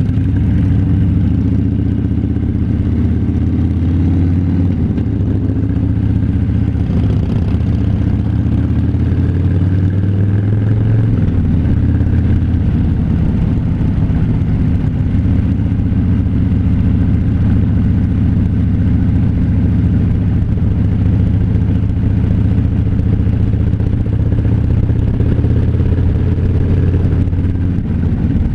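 Harley-Davidson motorcycle's V-twin engine running steadily under way, its deep low note shifting slightly in pitch about eleven seconds in.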